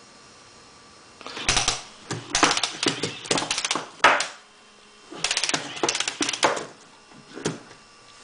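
Plastic fischertechnik walking robot running under its program: rapid clicking and clattering of its plastic legs and gears, in two bursts and then a single click near the end.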